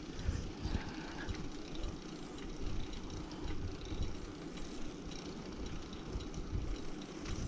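Riding noise from a bicycle rolling along asphalt: a steady hiss of tyres and air, with irregular low gusts of wind on the microphone and a few faint rattles.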